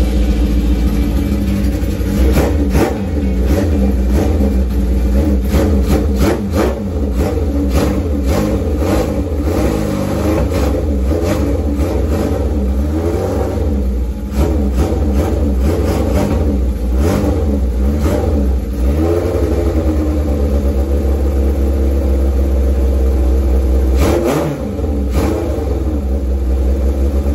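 Old Honda air-cooled inline-four motorcycle engine running at idle, revved up and allowed to drop back a few times.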